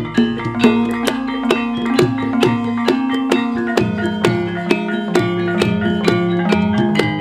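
Javanese gamelan playing a Ponorogo-style gending without voice: struck metallophone notes at about two strokes a second over kendang drum strokes.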